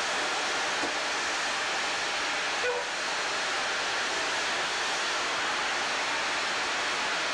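Steady hiss of high-pressure water sprays showering the logs on a loaded log truck as it passes through the wash.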